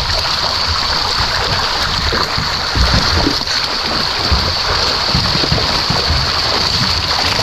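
A packed school of milkfish thrashing at the water's surface in a harvest net, a continuous churning and splashing with many small splashes and knocks.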